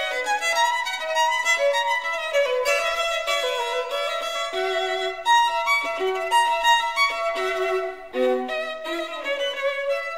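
Background music: a violin playing a flowing melody.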